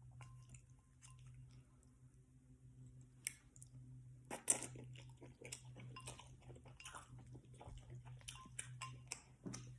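Faint close-miked chewing of beef lo mein noodles: soft wet smacks and clicks of the mouth, sparse at first and coming thick and fast from about four seconds in, over a steady low hum.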